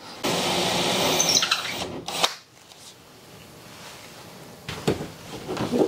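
Cordless drill motor running at speed for about two seconds, then cutting off sharply. Quieter afterwards, with a couple of sharp clicks near the end.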